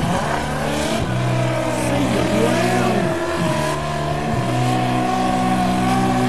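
Modified pulling tractor's engines revving up hard as it launches and pulls the weight sled down the track, then running flat out at high revs.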